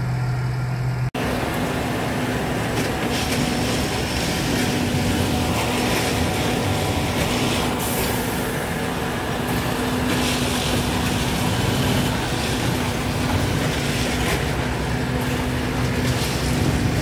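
Heavy diesel equipment running steadily in the street and on the tracks, a dense mechanical noise with a faint low hum. A deeper engine idle drone cuts off abruptly about a second in.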